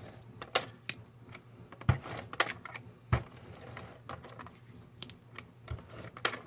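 Papers and photos for a scrapbook layout being handled and laid down on a work surface: scattered light taps and clicks, a few louder ones about two and three seconds in.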